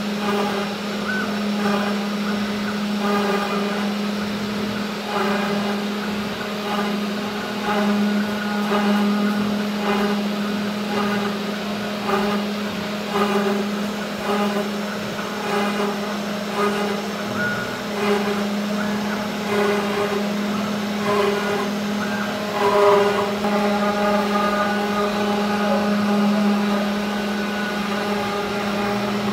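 CNC 3040 router's spindle running steadily while a V-bit engraves plywood in short strokes. Its stepper motors whine at shifting pitches as the head moves between cuts.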